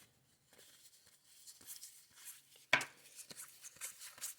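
Baseball cards being handled and flipped through: soft rustling of card stock with light clicks and taps, and one sharper snap a little past halfway.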